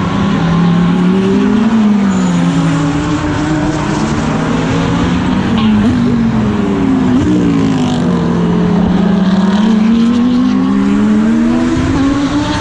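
GT3 race car engine heard from on board at racing speed. Its pitch climbs and falls several times as the car accelerates and changes gear.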